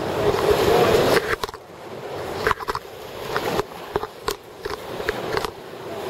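River water rushing around a raft in whitewater, swelling and fading twice, with scattered sharp knocks and scrapes close to the microphone.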